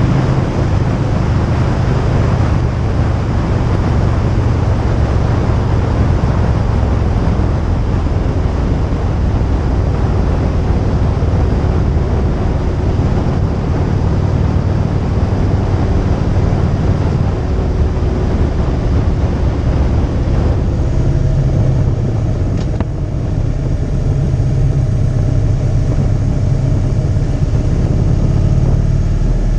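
Motorcycle engine running at road speed under heavy wind and road noise, with the engine note changing to a new pitch about two-thirds of the way through.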